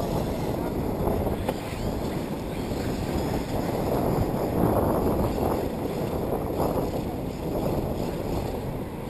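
Wind buffeting the microphone: a steady low rumble that rises and falls slightly.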